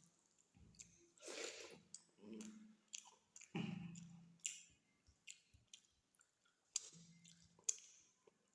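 A person chewing food, with irregular wet clicks and smacks of the mouth, faint.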